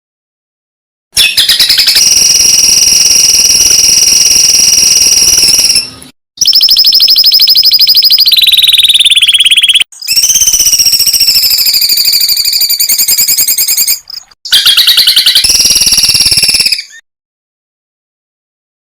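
Recorded songbird song: loud, rapid trills with shrill high notes, some sliding down in pitch. They come as four spliced clips separated by abrupt silences, the last ending about two seconds before the end. This is fill-in song ('isian') for training caged songbirds.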